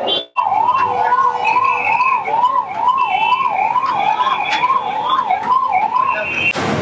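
A siren wailing up and down in pitch, about two rises and falls a second, starting just after a brief dropout and stopping shortly before the end.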